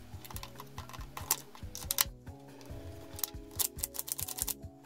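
Quick irregular clicks and knocks of a 1911-style gas blowback airsoft pistol's metal slide and frame being handled and fitted together on a wooden stand, thickest in the second half, over background music.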